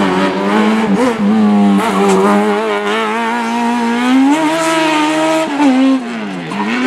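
Slalom race car engine revving hard, its pitch climbing, dropping sharply with a gear change and climbing again near the end.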